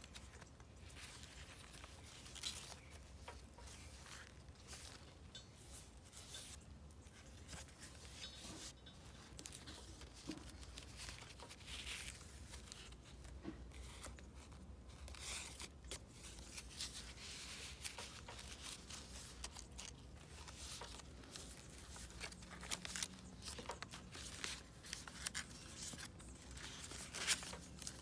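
Paper rustling and crinkling as the pages and tucked-in letters of a handmade journal made of vintage papers are lifted and turned by hand, in short scattered rustles with a sharper crackle near the end.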